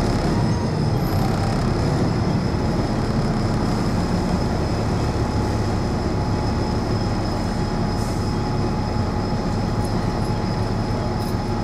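Double-decker bus's diesel engine idling while the bus stands still, heard from inside the upper deck as a steady rumble with a thin, steady high whine over it.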